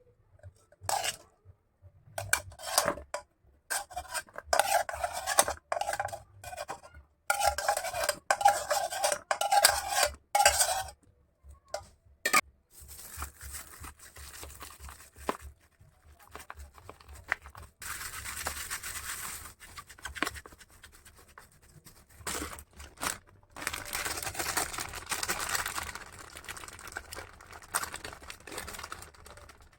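Kitchen utensils clinking and scraping against pots and bowls during cooking. In the first half the clinks come in quick runs, some ringing; in the second half they give way to longer stretches of scraping, as in stirring.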